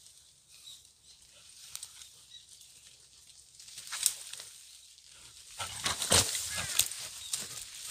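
A wild boar caught in a trap lunges and thrashes through dry leaves and brush: rustling and crashing, with a sharp crack about four seconds in and the loudest flurry from about five and a half to seven seconds.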